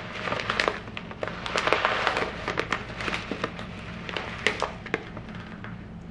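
Plastic bag of dried pearl couscous crinkling as it is handled and turned in the hands: irregular crackles, densest in the first few seconds and thinning out near the end.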